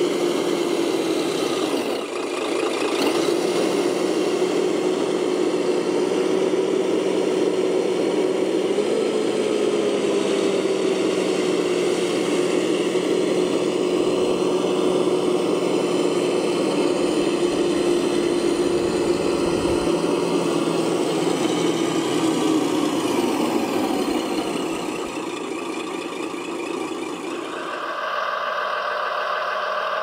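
Radio-controlled model construction machinery running with a steady, slightly wavering hum of motors and drive. A couple of seconds before the end the sound shifts to a higher-pitched whine.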